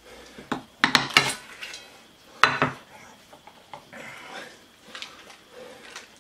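Small cast iron skillet knocking and clinking against a ceramic plate as it is turned over, with one loud clank about two and a half seconds in as the pan is set down. Softer rustling of parchment paper being peeled off follows.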